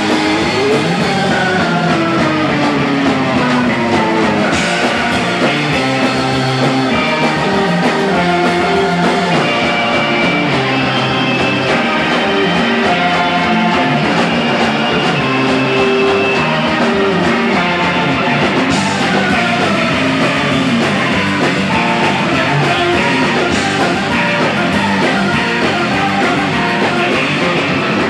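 Live surf-rock band playing loud, with electric guitars, organ and drums. Descending pitch glides sweep down in the first few seconds and again about two-thirds of the way through.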